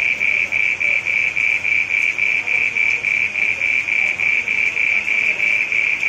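A small green frog calling with its vocal sac inflated: a rapid, even train of high-pitched pulses, about five a second, held at one pitch.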